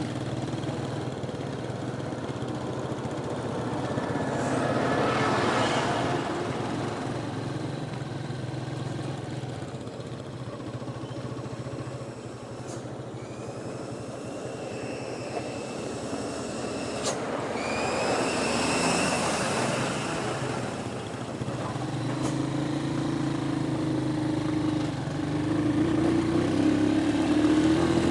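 A vehicle driving on a rough dirt road: its engine runs steadily under a noisy rattle of road and body noise. Around the middle there are a few sharp clicks and two brief rising high whistling tones.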